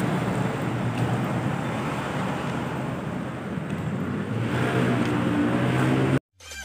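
Steady road traffic noise with a heavy truck's engine running close by, cutting off abruptly about six seconds in.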